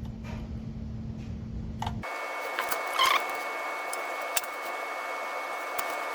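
Steady mechanical hum with a few small sharp clicks from work on the bench. About two seconds in, the low rumble drops away abruptly, leaving a steady high whine with hiss.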